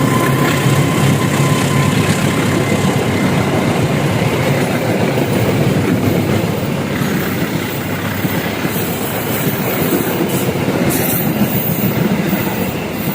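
A train passing close by at speed, its wheels running loudly over the rails; the noise eases a little near the end.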